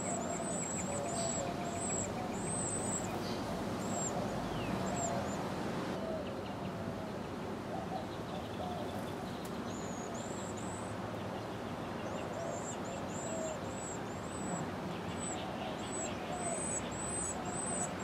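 High, thin begging calls of Carolina wren nestlings, short notes repeated quickly in runs, with a pause of several seconds midway, over a steady background rush.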